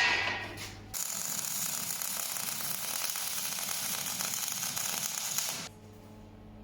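A sharp knock, then a steady crackling hiss of about four and a half seconds that stops abruptly, from a workshop tool or process.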